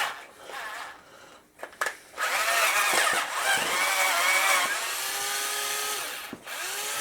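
18-volt cordless drill motor whining in bursts as it drills into scrap wood, its pitch sagging under load on a weak battery. A click comes just before the longest run, about two seconds in, and a shorter run near the end falls in pitch.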